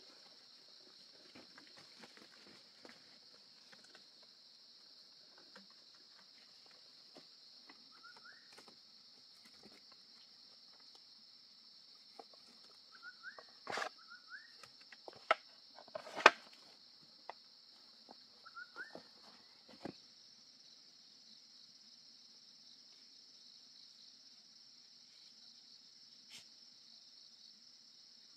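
Steady high buzzing of an insect chorus, with a cluster of sharp knocks and clacks of wooden stakes being handled on a wooden cage trap through the middle, the loudest just past halfway. A few short rising chirps are mixed in.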